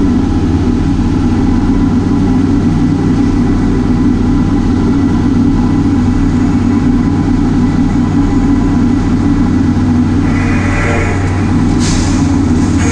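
Heavy farm diesel engine running steadily at a constant speed, with a brief higher-pitched sound about ten seconds in and a short hiss near the end.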